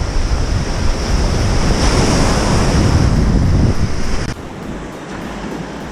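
Surf breaking and washing around the shoreline, with wind buffeting the microphone. About four seconds in, it drops abruptly to a quieter, steady surf wash.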